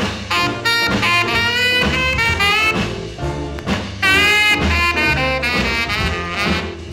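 1957 vocal-group 45 rpm record playing: a full band over a steady beat.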